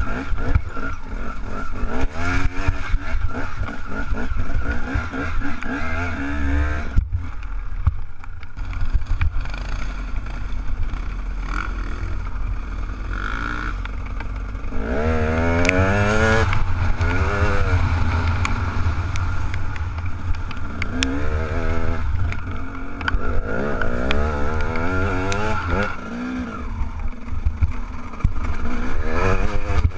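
Enduro dirt bike engine revving up and down while riding over rough ground, heard from the rider's helmet camera, with a brief dip about seven seconds in.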